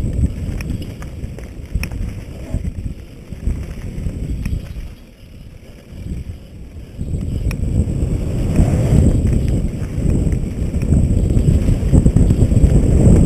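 Wind buffeting the camera microphone over the rumble of mountain bike tyres on a rough dirt trail, with scattered rattles and clicks from the bike. The rumble eases for a couple of seconds about halfway, then builds louder as the speed picks up.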